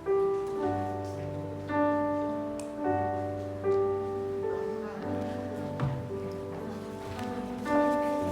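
Slow instrumental keyboard music: sustained chords over a bass line, with a new chord every second or so.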